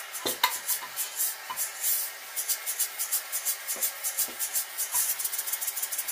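Brass model steam engine running fast, its exhaust steam puffing in a quick, even rhythm of about seven puffs a second over a steady hiss, with a few soft knocks. It is turning a belt-driven generator.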